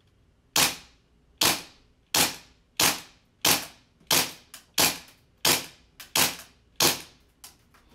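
G&G Piranha SL gas blowback airsoft pistol fired ten times at a slow, even pace, about one shot every 0.7 seconds, each a sharp crack as the slide cycles. Fainter clicks fall between the later shots.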